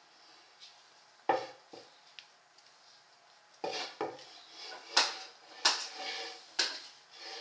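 Wooden balance board rocking under a standing baby, its edge knocking on the tiled floor in a series of sharp clacks, a couple about a second in and more, louder ones in the second half.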